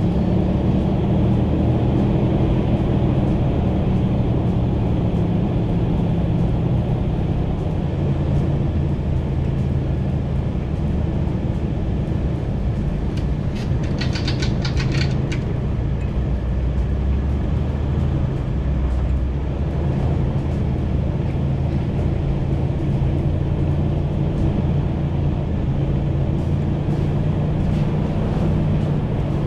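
Four-wheel-drive vehicle driving a rough dirt mountain trail: a steady engine drone with tyre and road noise. A brief burst of high clicking or rattling comes about halfway through.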